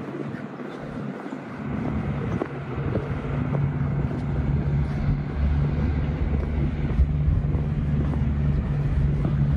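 A motor vehicle's engine running close by, a steady low hum that grows louder over the first few seconds and then holds.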